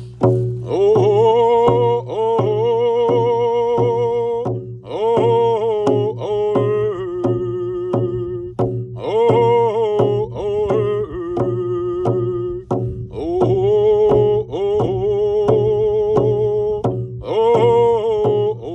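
Hand-held frame drums struck with beaters in a steady beat while voices sing a chant-like song in long phrases of about four seconds each, with short breaths between them.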